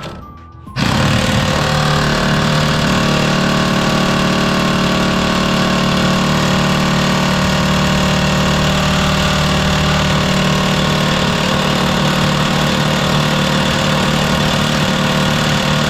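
A loud power tool, working on a badly bent bolt, starts about a second in and runs without a break.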